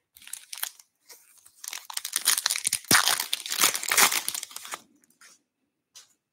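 A foil pack of 2023 Bowman baseball cards being opened by hand, its wrapper crinkling and tearing. The crackle is loudest in the middle and dies away about five seconds in.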